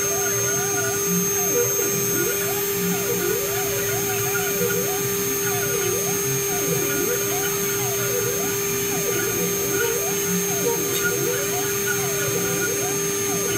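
STYLECNC ST6060H CNC mill carving crystal: the spindle runs with a steady whine while the axis motors whine up and down in pitch over and over, about once a second, as the machine moves the tool.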